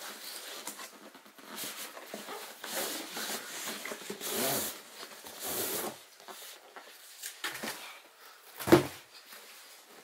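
Cardboard boxes scraping and rustling against each other as an inner product box is slid out of its shipping carton, with one sharp thump a little before the end.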